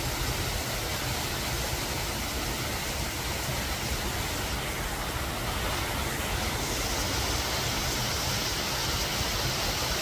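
A mountain stream rushing and splashing down a narrow granite gorge, running high after monsoon rains: a steady hiss of water. The hiss grows a little brighter after about six and a half seconds, as a small waterfall comes into view.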